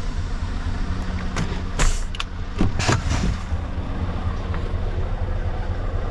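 Scania S770's V8 diesel engine idling steadily, with a few short, sharp clicks and noises between about one and a half and three seconds in.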